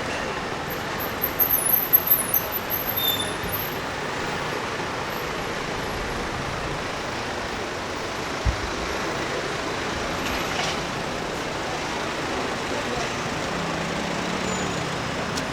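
Steady city street traffic noise with passing road vehicles. About a second in comes a short run of sharp high-pitched squeaks or chirps, and there is a single low thump about eight and a half seconds in.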